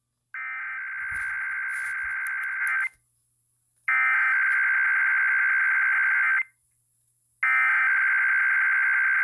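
Emergency Alert System SAME header, heard over AM radio: three bursts of buzzing digital data tones, each about two and a half seconds long with about a second between them, the first quieter than the other two. The header encodes a Required Weekly Test.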